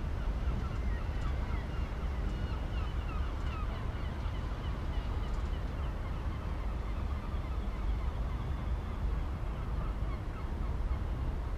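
Birds calling in quick, short chirps, mostly in the first half, over a steady low outdoor rumble.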